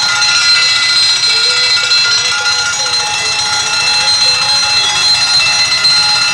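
Railway level-crossing warning alarm ringing continuously with a steady, unchanging high ringing tone, the signal that a train is approaching while the barriers are down.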